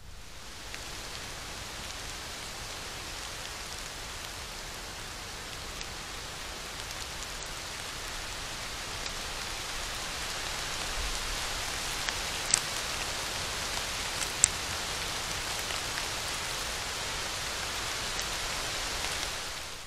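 Steady rain falling, a little louder from about halfway, with two sharp ticks a couple of seconds apart past the middle.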